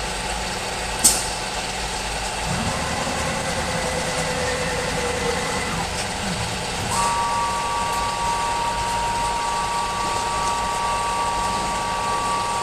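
Machinery running steadily, with a sharp click about a second in, a low rumble joining a couple of seconds later, and a steady high whine setting in a little past halfway.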